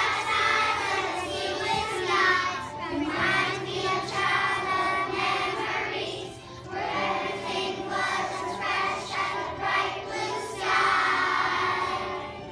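A choir of kindergarten children singing together, with a short break about six seconds in.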